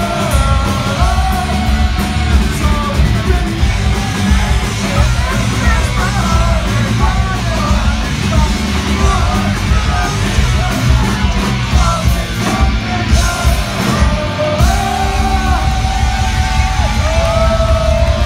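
Live thrash-punk band playing loud, distorted rock with yelled vocals, heard from among the crowd in a club.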